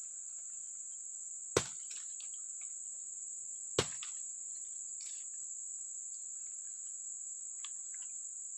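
A steady, high-pitched insect chorus, with two sharp knocks about a second and a half and nearly four seconds in, from hands working at the base of a tree by a catfish hole.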